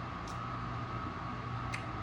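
Steady background hum with a constant tone, broken twice by a short click of eating watermelon with a spoon.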